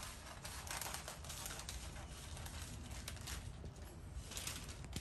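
Scissors cutting through a large sheet of thin decoupage paper: a string of short snips with the paper rustling and crinkling as it is handled.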